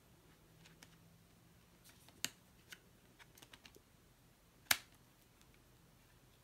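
Scattered clicks and snaps of a clear plastic multi-disc Blu-ray case as its hinged disc trays are flipped and the discs handled. Two sharper snaps stand out, about two seconds in and just under five seconds in.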